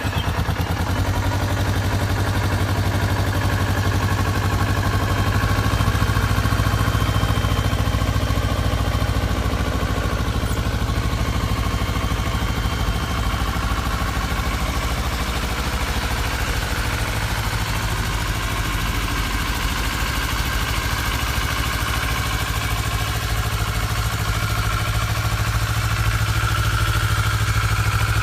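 Kawasaki Ninja 400's parallel-twin engine idling steadily, just after being started.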